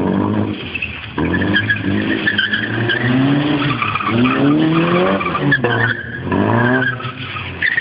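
Car engine revving up hard several times with short breaks between, as the car is driven fast around a cone course, with tyres squealing and skidding over it.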